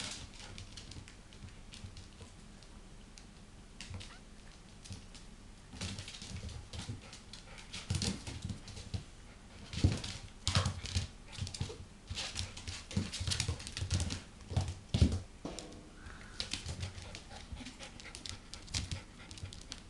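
A black Labrador puppy and a Jack Russell terrier playing on a carpet, with a run of short knocks and low thumps from their scuffling close to the microphone in the middle of the stretch, quieter after.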